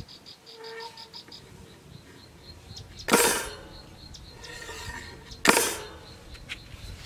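Two brief, loud rustling scrapes about two seconds apart as the wire fan-guard trap is handled on sandy ground. Behind them an insect keeps up a faint, rapid high ticking.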